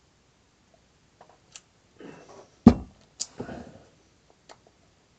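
Heavy glass beer mug set down on a table with one sharp clunk about two and a half seconds in, between the mouth and breath sounds of drinking.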